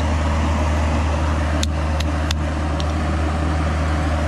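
Excavator's diesel engine running steadily with a low, even drone. Four short sharp clicks come close together about two seconds in.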